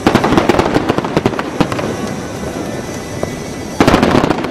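Aerial fireworks exploding in quick succession: a dense barrage of sharp pops and crackles right at the start, a busier lower stretch of bangs, then a second loud barrage near the end.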